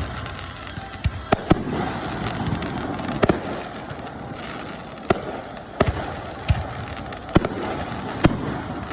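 Fireworks display: about ten sharp bangs of bursting fireworks at irregular intervals, some in quick pairs, over a continuous background noise.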